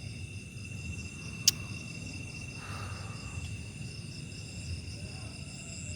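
Night insect chorus: crickets and other insects trilling steadily on several high pitches over a low rumble, with a single sharp click about one and a half seconds in.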